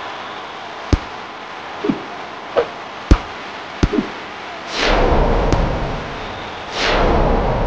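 Volleyball rally sound effects: about six sharp smacks of the ball being struck over the first four seconds, then two loud rushing swells of noise, each lasting about a second.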